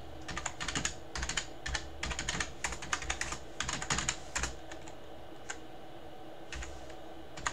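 Computer keyboard typing: quick runs of keystrokes for the first four seconds or so, then a few single clicks spaced apart.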